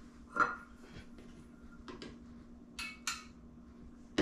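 A spoon clinking and scraping against a jar and a glass measuring cup while mayonnaise is scooped out. There is a ringing clink about half a second in, then a few short scrapes and knocks, and a louder knock at the end.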